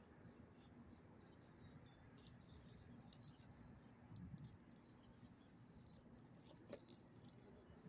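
Faint, scattered light clicks and ticks as a small dog moves and sniffs about on loose gravel, over a quiet low background hum.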